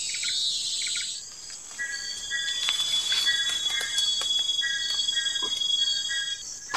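Forest insects, crickets, calling: a dense pulsing high chorus that stops about a second in, followed by several steady high trills in repeated short runs, with a few scattered clicks.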